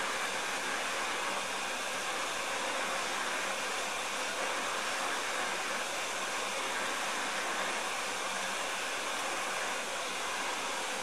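UTEN 959D hot air rework station blowing a steady rush of hot air from its nozzle onto the pins of a surface-mount chip, heating the solder to desolder the part.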